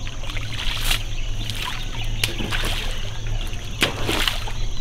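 Elephant's trunk slapping and sloshing in a shallow pool of muddy water: several short wet splashes, the biggest a cluster near the end.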